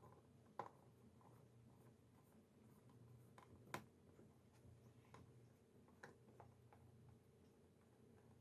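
Near silence with a few faint, short clicks, the clearest about four seconds in: a small hand screwdriver turning a screw into a laptop's plastic bottom case.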